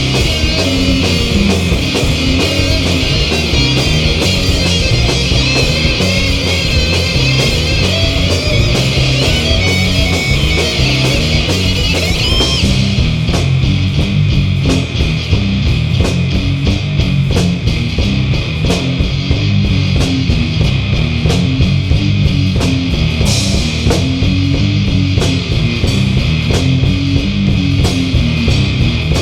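Stoner rock band playing live: an instrumental passage of heavy electric guitars over bass and drums. A wavering high line rides on top for the first twelve seconds or so, then drops out while the riff carries on.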